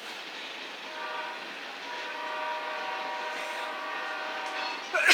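Freight locomotive's multi-chime air horn sounding one long steady blast of several notes together, starting about a second in and lasting nearly four seconds. A short loud burst of noise comes at the very end.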